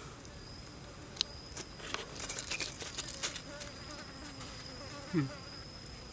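A steady high-pitched insect drone, with scattered clicks and taps of hands and a cleaver handling raw salmon fillets on ice. About five seconds in, a short low sound slides down in pitch and is the loudest moment.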